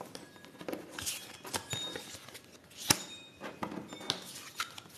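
Playing cards of a cigano (Lenormand) deck being handled and laid out on a table: soft slaps and rustles of card on card, with a sharper click about three seconds in.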